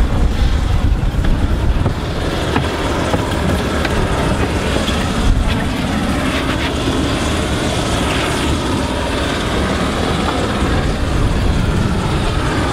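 Strong wind buffeting the microphone in a steady, loud low rumble.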